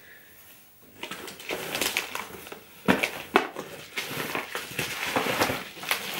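Wrapping paper and gift packaging crinkling and rustling as a present is handled, starting about a second in, with two sharper clicks about three seconds in.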